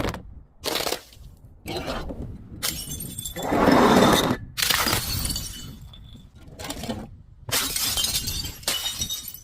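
Glass bottles shattering, one after another, about eight breaks in quick succession, each starting and stopping abruptly.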